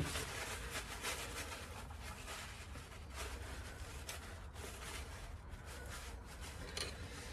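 Faint scattered clicks and rustles of hand work with a screwdriver and rag on the fuel hose and filter of a stopped engine, over a low steady background rumble.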